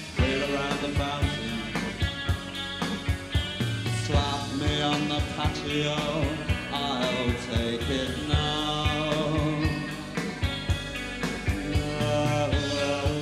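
A rock band playing live, with electric guitar, bass and a steady drumbeat, and a voice singing at times.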